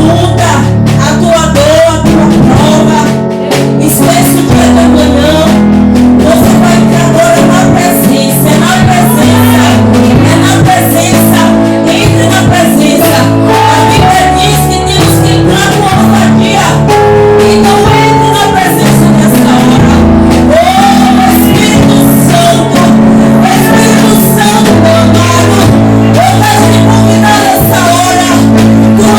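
Worship music played live: sustained bass and chord notes changing every couple of seconds, with a voice singing over them.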